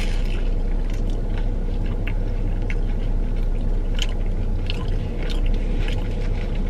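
Close-up chewing of battered fried fish, with scattered wet mouth clicks and smacks, over a steady low hum.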